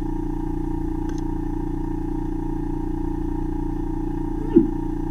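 Microsuction machine's vacuum pump running with a steady hum. Near the end, a sudden brief loud sound falling in pitch breaks in over it.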